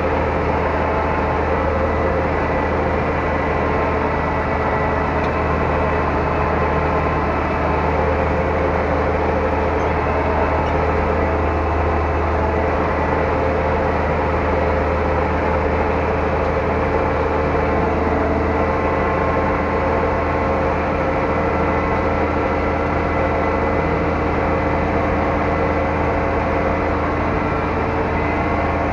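Zetor 12145 tractor's six-cylinder turbo diesel engine running at a steady pace under load while dragging a field, heard from inside the cab as an even, deep drone.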